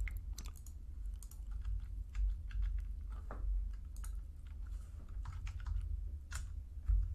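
Computer keyboard keys tapped in scattered, irregular keystrokes while a number is typed into a field, over a steady low hum.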